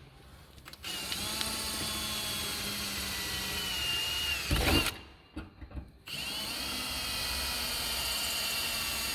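Power drill boring rivet holes through a mounting bracket into the side body panel of a Land Cruiser troop carrier, running in two steady spells of about four seconds each with a short pause between. The first spell ends in a brief louder burst.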